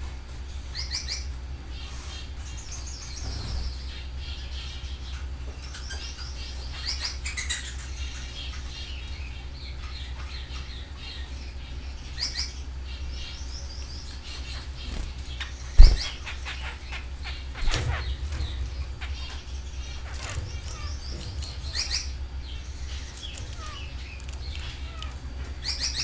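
Canaries chirping and trilling in short phrases, with wing flutters, over a steady low hum. A single sharp thump about two-thirds of the way through is the loudest sound, with smaller knocks shortly after.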